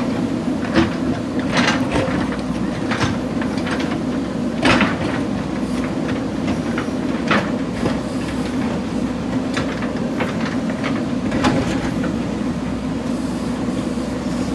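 JCB backhoe loader's diesel engine running steadily under work, with irregular knocks and clanks from the digging gear every second or few.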